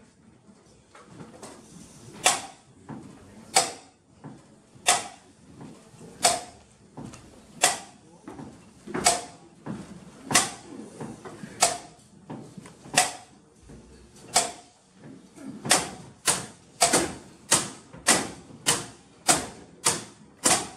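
Metal toolboxes banged as a percussion rhythm: single clangs with a short ring, evenly spaced about every second and a half, quickening to about two a second in the last third.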